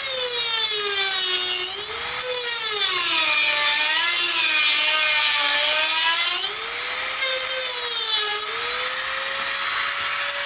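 High-speed rotary tool with a cutoff wheel cutting around a tubular filter capacitor's casing. Its whine drops in pitch as the wheel bites in and climbs back as the pressure eases, twice over, then runs steady and free near the end.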